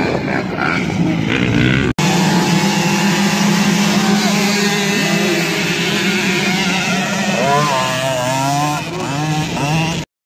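Several motocross motorcycle engines running and revving, their pitch repeatedly rising and falling. The sound drops out for an instant about two seconds in and cuts off abruptly near the end.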